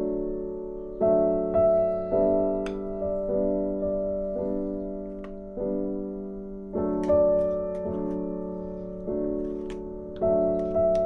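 Background piano music: slow, soft chords struck every second or so, each left to fade.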